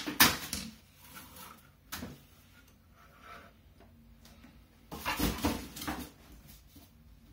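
Handling noises on a wooden desk as a graphics card and its cardboard box are moved and set down. There is a sharp knock at the start, a light tap about two seconds in, and a short run of knocks and rustling around five seconds in.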